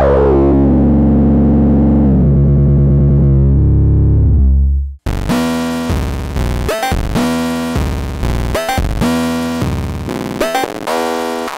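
Modular synthesizer oscillator playing through a Noise Reap Anomaly filter: a sustained drone whose cutoff is swept down so the tone darkens, cutting off about five seconds in. Then a run of short, rhythmic synth notes with brief gaps, the filter in highpass mode.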